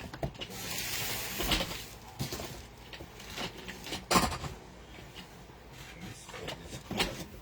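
Trading-card packs and boxes being handled and opened: a crinkling rustle about a second in, then scattered taps and knocks.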